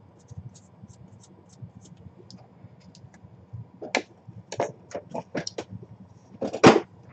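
Marker pen scratching in short strokes across a cardboard puck box, followed by the boxes being handled: a quick series of clicks and knocks, with one louder knock near the end.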